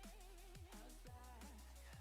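Faint background music, an electronic track with a steady deep beat about twice a second and a wavering melody over it.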